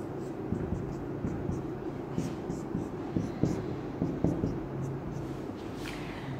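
Marker pen drawing on a whiteboard: a run of short, irregular scratching strokes.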